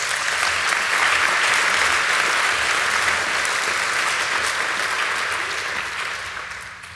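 Audience applauding, building quickly at the start and dying away near the end.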